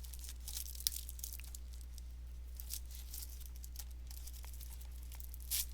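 Plastic shrink-wrap being picked at and torn off a Blu-ray case: scattered crinkles and crackles, with a louder tear near the end.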